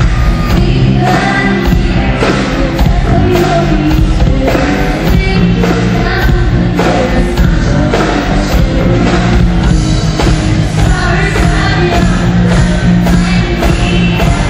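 Live pop-rock band playing loudly: a girl singing lead into a microphone over drums and electric bass.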